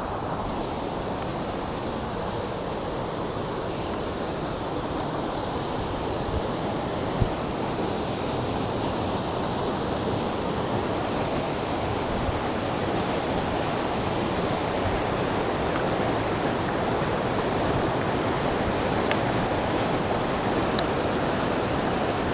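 Small waterfall rushing steadily, the sound of the falling water growing gradually a little louder. A brief thump stands out about seven seconds in.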